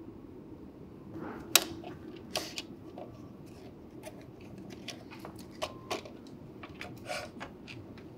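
Light, irregular clicks and taps of a small switch, wire and soldering tools being handled on a workbench while a wire is soldered onto the switch, over a faint steady hum.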